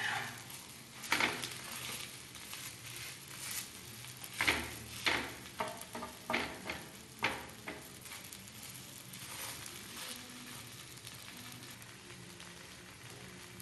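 Uttapam frying in oil on a griddle with a faint steady sizzle. A spatula scrapes the pan in short strokes, once about a second in and then in a quick run of scrapes between about four and eight seconds in.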